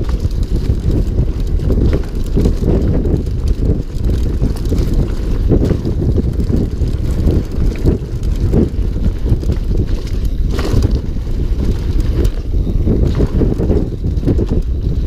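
Heavy wind rumble buffeting a camera microphone, dense and low throughout, with scattered knocks and rattles.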